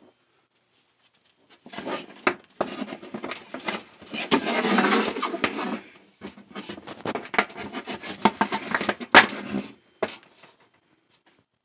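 Rubber power hose with brass fittings being handled and slid across a plywood bench: scraping and rustling with scattered clicks and knocks, and one sharp knock about nine seconds in.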